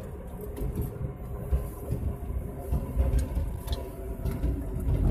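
Road and engine noise inside a moving car on a highway: a continuous low rumble.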